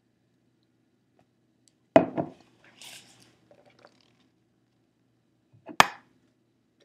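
Handling noise as a binder and other newly bought items are picked up close to the microphone: a sharp clatter of a few quick knocks about two seconds in, a soft rustle just after, and one sharp knock near the end.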